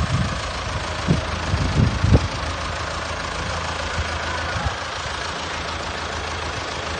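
Heavy machine's engine running steadily at low revs, with a few low thumps in the first two seconds or so.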